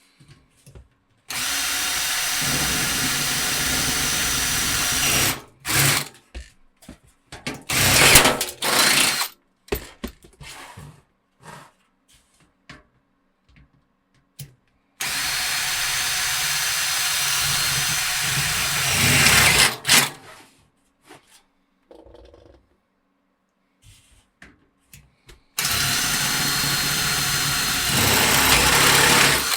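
Power drill drilling out three steel PC-case rivets: three steady runs of several seconds each, getting louder just before each stops, with short bursts and clicks in between.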